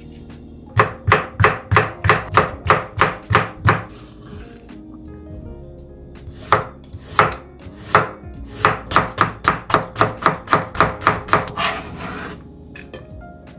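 Kitchen knife chopping on a cutting board in two quick, even runs of about four strokes a second, with a short scrape near the end. Faint background music plays underneath.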